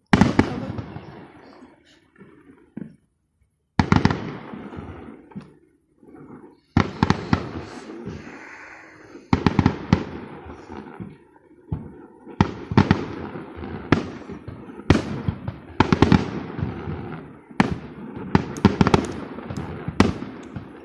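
Aerial firework shells bursting. A loud bang comes at the start, then a short lull, then bangs come more and more often, in quick clusters near the end, each dying away slowly after the hit.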